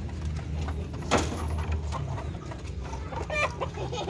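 Chickens clucking inside a slatted wooden coop, with a wavering call about three and a half seconds in, and a single sharp knock about a second in.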